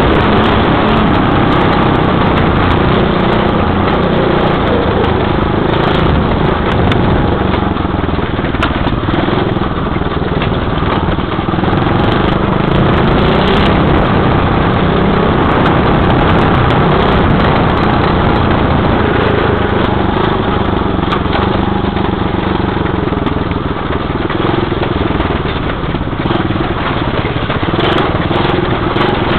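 Dirt bike engine running under way, heard from on the bike, with its revs wavering as the rider works the throttle over the rough grass track.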